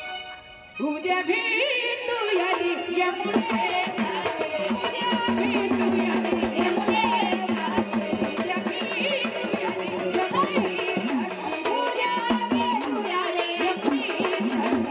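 Marathi jagran gondhal folk music: a woman singing a wavering melody over a steady, fast hand-drum beat. The music dips briefly at the start, then comes back at full level.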